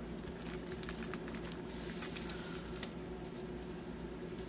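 Clear plastic film on a rolled diamond-painting canvas crinkling as the canvas is unrolled off its tube, with scattered light clicks and rustles that thin out after about three seconds.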